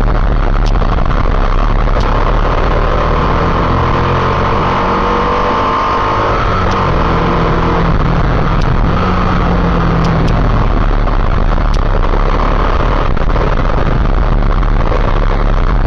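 Motorcycle engine running while riding, under a steady loud rush of wind and road noise, with the engine pitch shifting a little in the middle.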